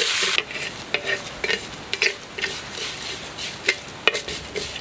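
Wooden spatula stirring and scraping rice, dried red chillies and curry leaves frying in coconut oil in a wide aluminium pan. A loud sizzle stops about half a second in, leaving short, irregular scrapes of the spatula against the metal.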